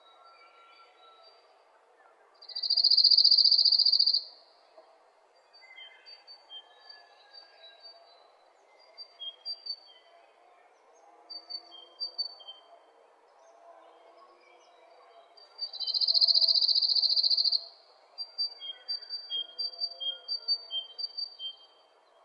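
A small bird singing: two rapid, buzzy high trills about thirteen seconds apart, each followed by a string of short high chirps alternating between two pitches.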